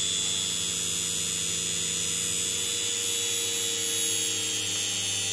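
Pair of small coupled DC motors spinning at speed, a steady motor hum with a high PWM whine from the braking controller. The generator motor is being loaded more and more by regenerative braking as the PWM is turned up, adding drag.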